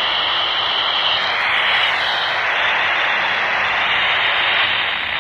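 Steady FM static hiss from a Baofeng UV-5R handheld radio's speaker, open on the International Space Station's 145.800 MHz downlink, with a faint wavering whistle in the first couple of seconds.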